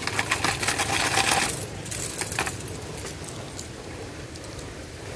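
Spinning fishing reel and line working: a burst of rapid metallic ticking lasting about a second and a half, then a few separate clicks about two seconds in.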